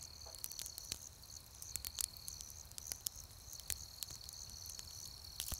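Crickets chirping steadily at night, with scattered sharp crackles from a fire pit.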